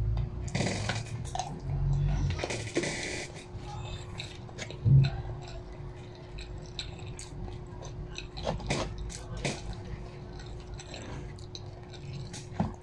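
A person eating: chewing, with scattered light clicks and scrapes of a plastic fork picking food from a paper takeaway box. There is a rustle in the first three seconds and a low thump about five seconds in.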